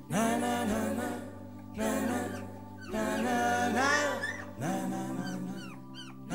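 Background music with a sung or melodic lead. Near the end, a few short, high squeaks from two-week-old English springer spaniel puppies start to come in.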